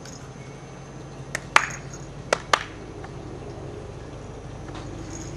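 Four short, sharp clicks in two quick pairs about a second apart, over a steady low hum.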